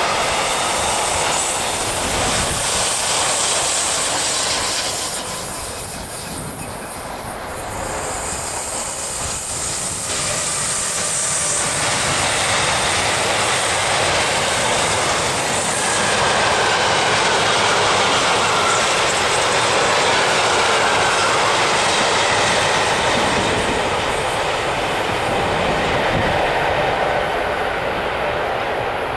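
Freight wagons rolling past close by on a curve of the electrified Gotthard line, with steady wheel-on-rail rumble, clatter over the rail joints and some wheel squeal. The noise eases a little about five seconds in and swells again about halfway through as more wagons pass.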